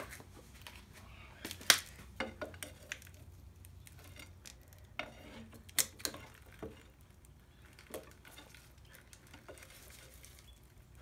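Scattered metal clinks and clanks of tools and bolts being handled while working a part off a diesel engine block, with one sharp clank about two seconds in and lighter clinks after it.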